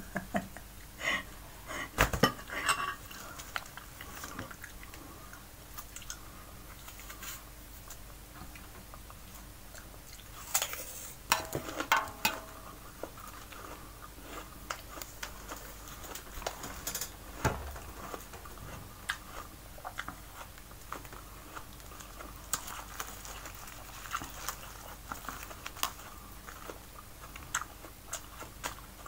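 Close-up eating sounds: chewing and crisp crunching bites of raw apple, with occasional clicks of cutlery and dishes. The loudest crunches come about two seconds in, around eleven to twelve seconds in, and once more near eighteen seconds.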